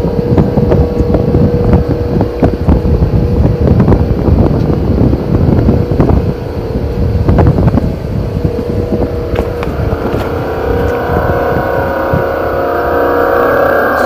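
Loud, low droning rumble with a steady hum, one of the reported 'strange sounds in the sky', with wind buffeting the microphone. A higher droning tone swells in about ten seconds in.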